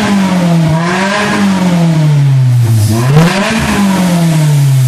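Toyota Camry engine revved through an exhaust fitted with a remote-controlled valve, the valve closed: the note falls from a rev, swells a little, dips, then rises again about three and a half seconds in and falls away slowly.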